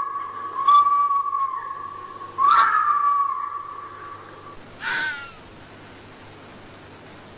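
Fox-like creature calls: a few drawn-out, wavering high-pitched calls, then a short yelp that drops in pitch about five seconds in, followed by steady background hiss.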